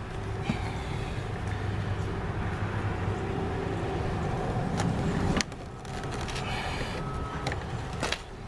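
Scattered light clicks and taps of a screwdriver prying plastic door-trim clips, over a steady low rumble.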